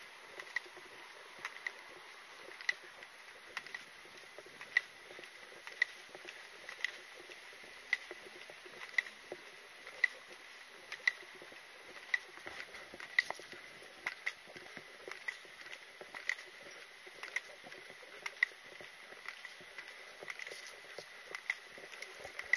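Walking on a sidewalk with a light metallic clink about once a second, in step with the stride, from gear carried on the body; each clink rings briefly at one high pitch, with softer ticks between them.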